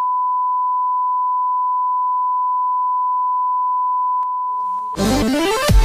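A steady, loud, single-pitch electronic beep like a television test tone. It cuts off about five seconds in, when electronic dance music starts with a rising sweep and a heavy beat.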